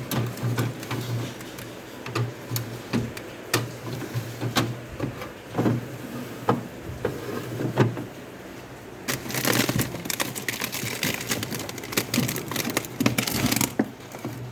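Objects being handled in a fridge: irregular clicks and knocks of containers being moved and set down, then about four seconds of rustling, like packaging being handled, from about nine seconds in.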